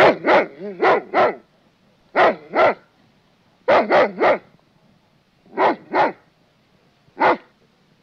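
A dog barking in short sharp barks that come in clusters: a quick run of four or five, then groups of two or three with pauses between, and a single bark near the end.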